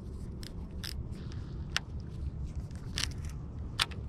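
Irregular sharp clicks and taps from a baitcasting reel being handled at its handle and drag, the strongest near the end, over a steady low rumble.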